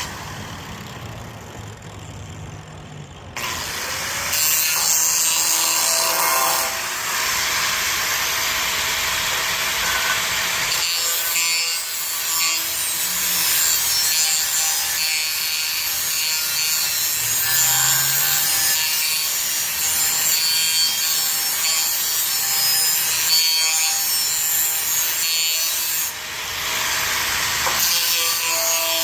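Power tool cutting steadily with a harsh, hissing grind that starts a few seconds in, with a brief letup near the end.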